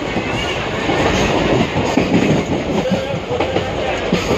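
Steady rumble and rattle of a running local passenger train, heard from inside the coach: wheels on the track and the carriage shaking.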